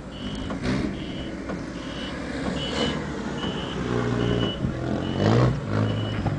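A vehicle's backup alarm beeping steadily, about one short high beep every 0.8 s, over the low rumble of an engine that grows louder about five seconds in.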